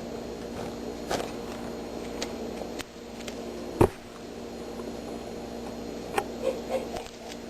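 A steady indoor electrical hum with several layered tones, broken by a few light clicks and one sharp knock about four seconds in.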